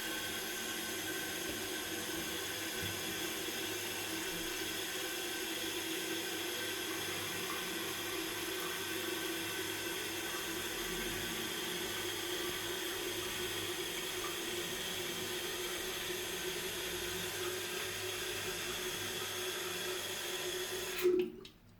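Toilet tank refilling through its fill valve: a steady rush of water with a few held tones, which cuts off abruptly near the end as the valve shuts off at the lowered water level.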